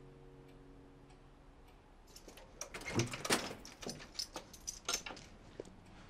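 Keys rattling in a front-door lock and the door being unlocked and opened: a cluster of sharp clicks and knocks that starts about two seconds in, is loudest around three seconds in, and trails off near the end.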